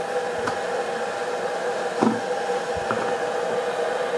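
Cecotec Mambo kitchen robot running with a steady electric hum, with a few light knocks, the clearest about two seconds in.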